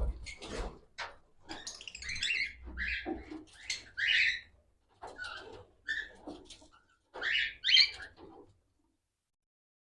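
Cockatiels calling: a run of short, harsh squawks and chatter, stopping about eight and a half seconds in.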